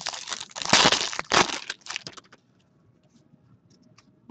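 A hockey card pack's wrapper torn open and crumpled by hand: a burst of crinkling and tearing lasting about two seconds, loudest about a second in.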